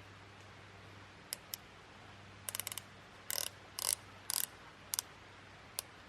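A series of short, irregular mechanical clicks and rasps, some in quick clusters, like a ratchet or small mechanism being worked.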